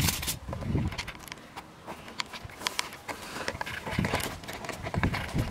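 Footsteps and rustling on dry grass and fallen leaves, with scattered irregular clicks and crackles.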